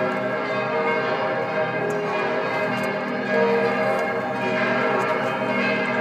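Bells of several church towers ringing at the same time, their strokes overlapping so that many pitches sound together continuously, with no clear single rhythm.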